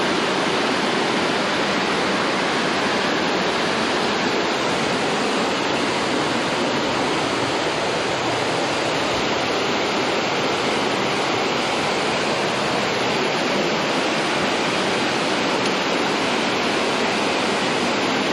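Water rushing into a canal lock chamber through the upstream gate's sluices as the lock fills to raise the boat: a steady, unbroken rush of falling water.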